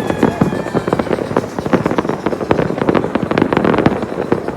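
Fireworks going off in a dense, rapid string of crackling bangs, with a steady high whistle fading out about a second in.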